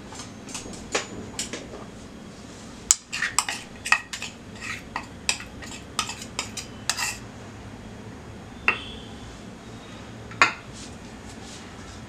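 Kitchen utensils clinking and tapping in a plastic mixing bowl as dosa batter is poured out of a cup, with a wire whisk lying in the bowl. A busy run of sharp clinks lasts about the first seven seconds, followed by two lone knocks later on.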